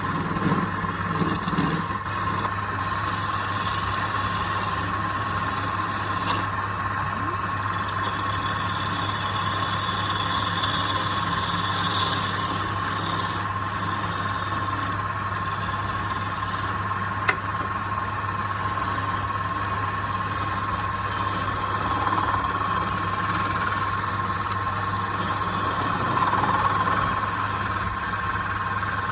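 Electric woodworking power tool switching on and running steadily, with a constant high-pitched whine over a low hum and a single click partway through.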